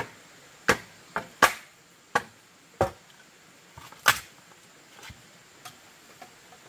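Hollow knocks of bamboo poles as a bamboo post is handled and stood upright: about six sharp, irregular clacks within the first four seconds, then a few fainter taps.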